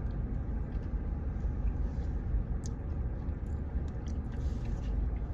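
A person chewing a mouthful of baked beans, faint under a steady low background rumble.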